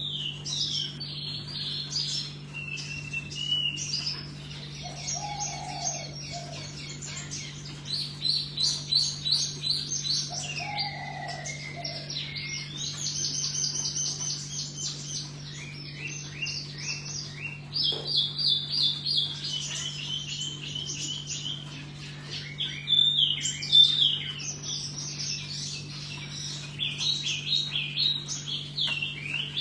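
A songbird singing continuously in rapid, varied runs of high chirping notes. A few short low hooting notes come in early on, and a steady low hum runs underneath.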